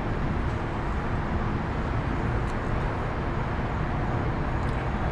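Steady low rumble and hiss of outdoor urban background noise, unchanging throughout.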